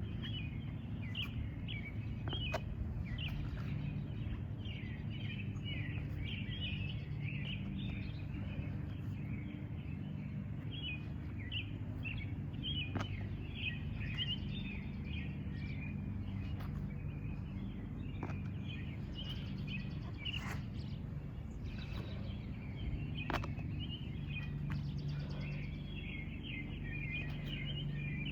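Small birds chirping and twittering over and over above a steady low hum, with a few faint taps now and then.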